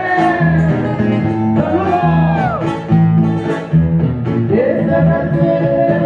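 Live band playing a song with a singer, loud through the club's sound system: a steady bass line and sustained instrument notes under a sung melody with sliding notes.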